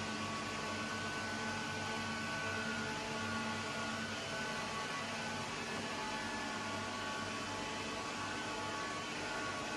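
Steady machine hum with a hiss of air: several constant tones over an even whooshing noise from running equipment or ventilation, unchanging throughout.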